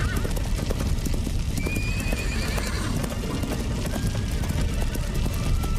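A herd of horses galloping: a dense, unbroken run of hoofbeats, with a short whinny about two seconds in, over background music.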